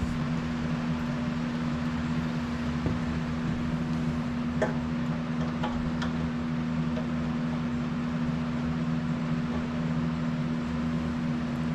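A steady low machine hum with an unchanging pitch, with a few faint clicks about four and a half and six seconds in.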